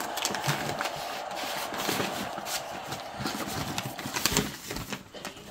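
Plates and cutlery clinking and knocking on a table, a scatter of short sharp sounds over a steady background hum that fades near the end.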